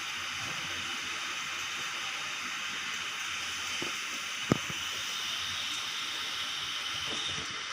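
Steady hiss of background noise, with a single sharp click about four and a half seconds in.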